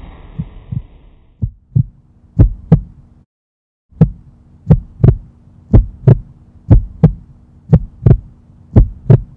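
Heartbeat sound effect: slow lub-dub pairs of deep thumps, about one pair a second, that grow louder after the first couple of seconds, over a faint hum. They stop briefly for a moment of silence about three seconds in.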